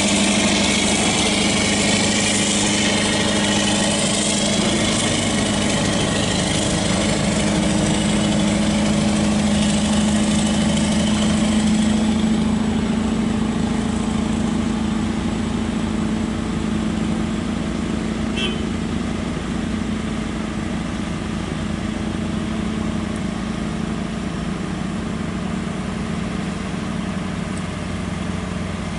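Scania R580 truck's V8 diesel engine idling steadily with a deep, even hum. About twelve seconds in the hissy upper part of the sound falls away and only the engine's low hum carries on.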